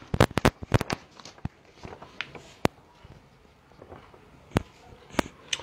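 Sharp, irregular clicks and taps: several in quick succession in the first second, then scattered single ones.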